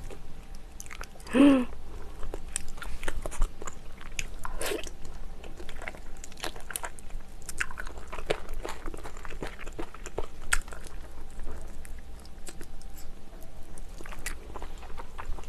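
Close-miked eating: wet chewing, smacking and sharp mouth clicks as pieces of monkfish are gnawed off the bone by hand, in an irregular patter. A short hum of the voice about a second and a half in.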